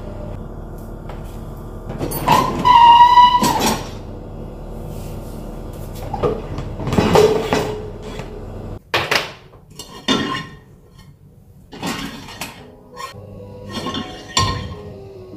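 Dishes and dishwasher racks being handled while a dishwasher is unloaded. About two seconds in there is a loud scraping slide with a held squealing tone, then another scrape, then a string of separate clinks and clatters of dishes and cutlery.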